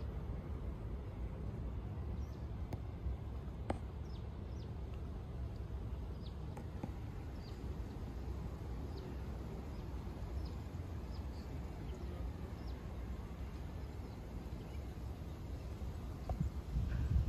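Outdoor ambience: a steady low rumble with faint, short bird chirps scattered throughout, and a single sharp click about four seconds in.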